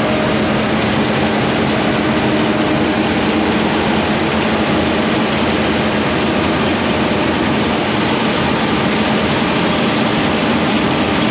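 A large engine running steadily under load, a loud even noise with a steady low hum and no change in pitch.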